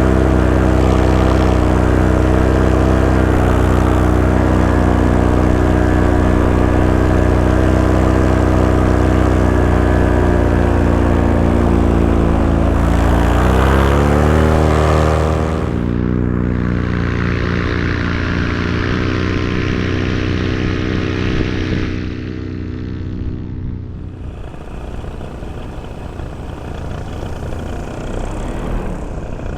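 Paramotor engine and propeller running steadily, rising in pitch as the throttle is opened about 13 seconds in. About 16 seconds in the steady engine tone drops away, leaving a quieter rushing noise that grows fainter after about 22 seconds.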